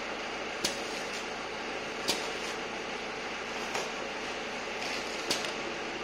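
Automatic knife set-up device of a slitting rewinder at work, moving the slitting blades into position: a steady machine whir with a sharp click about every one and a half seconds, four in all.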